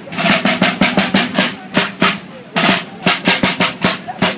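Sienese contrada side drum (tamburo) beaten in a rapid, rolling march rhythm, with a short break about halfway through.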